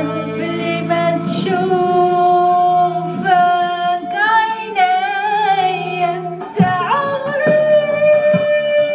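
A woman singing through a handheld microphone, drawing out long ornamented notes that waver in pitch, over a steady low musical backing. About six and a half seconds in, the backing stops and a new sung phrase begins.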